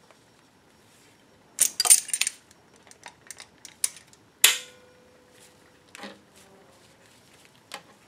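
Steel locking pliers clamping and working a seized, torch-heated threaded stud on the engine: a quick flurry of sharp metal clicks and snaps about a second and a half in, then scattered clicks. One louder snap with a brief metallic ring comes about halfway through, and a few lighter clicks near the end.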